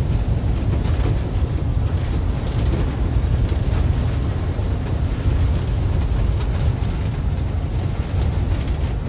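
Steady low rumble of road and engine noise inside the cabin of a moving vehicle, with faint scattered rattles.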